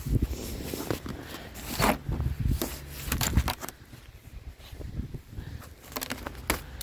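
Irregular crunches and scrapes of snow and ice being handled and knocked off a snow-covered vehicle.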